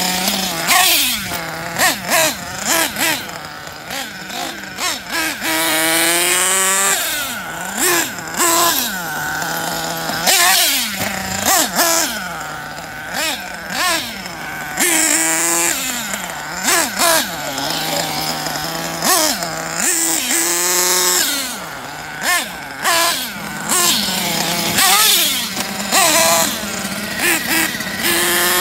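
Kyosho Inferno NEO ST 3.0 nitro RC car's small two-stroke glow engine being driven hard, revving up and dropping back over and over. Its high, buzzing pitch swoops up and down with each burst of throttle.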